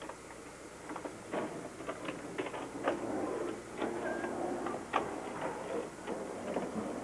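Inline skate wheels rolling on a concrete walk: a rough rolling rumble broken by irregular clicks and clacks.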